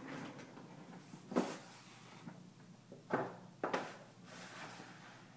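Large sheets of chart paper being flipped over to the next page, with rustling and three sharp crackles of the paper.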